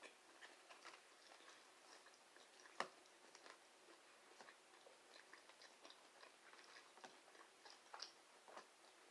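Faint chewing of breaded chicken nuggets: soft scattered mouth clicks and crackles, with one sharper click about three seconds in.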